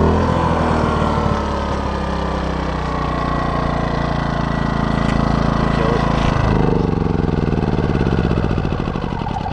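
DuroMax XP2000is inverter generator engine changing speed: its steady hum breaks up and drops in pitch at the start, shifts again about six and a half seconds in, and dies away near the end.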